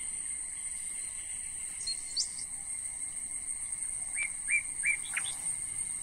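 Birds chirping over a steady high-pitched insect drone: a couple of quick notes about two seconds in, then a run of short chirps near the end.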